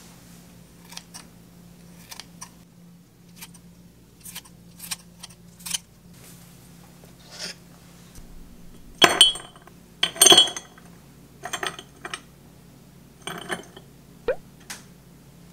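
A string of light taps and clicks, then ice cubes dropped into a thick glass mug, clinking and ringing sharply twice, about nine and ten seconds in, followed by a few lighter clinks.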